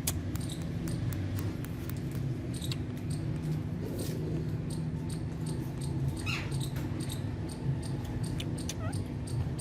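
Ringneck parrot making a few soft clicks and one short falling call about six seconds in, over a steady low hum.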